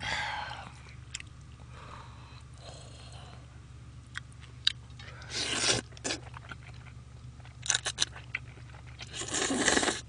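A person slurping and chewing jjajangmyeon (noodles in black bean sauce) close to the microphone: three longer slurps, near the start, about halfway and near the end, with wet chewing and small clicks between.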